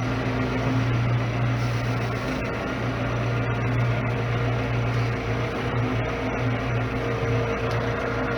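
Tractor's diesel engine running at a steady speed, a constant low hum.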